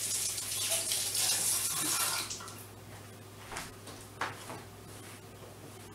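Kitchen sink faucet running while hands are rinsed under it. The water is shut off about two seconds in, followed by a few faint knocks.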